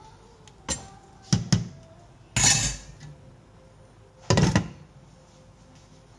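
A metal spoon knocks against a stainless steel pan twice. Then come two louder clatters of a metal pan lid, the second near the end as the lid is set down on the pan.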